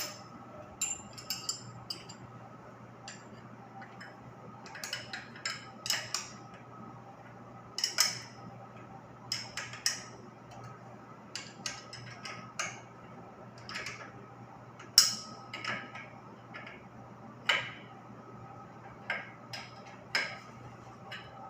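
Hand tools working on the metal fittings of a water heater's circulating pump: irregular sharp metallic clinks and clicks as bolts and a joint are loosened, over a steady low hum.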